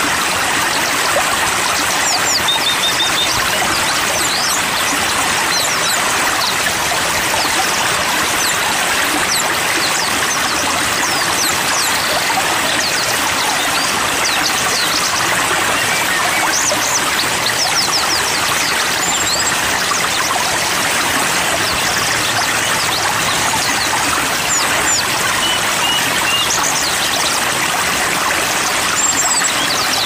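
Steady rushing water of a stream or small waterfall, with many small birds' short, high chirps and quick runs of notes scattered over it.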